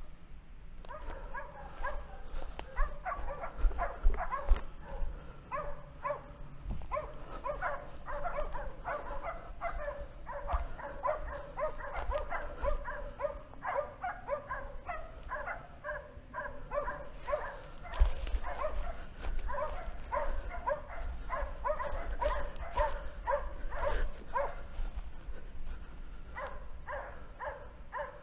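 Hunting dogs barking and baying without a break, several short calls a second, as they work a wild boar's trail. The barking eases off briefly near the end, then picks up again.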